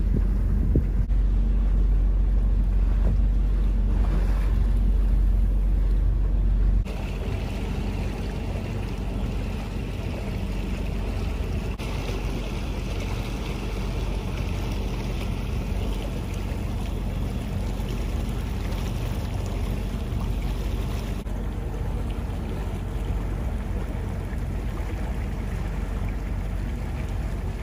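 Wind rumbling on the microphone over a steady low hum. About seven seconds in, the rumble drops away suddenly, leaving a quieter, even wash of noise with a faint hum.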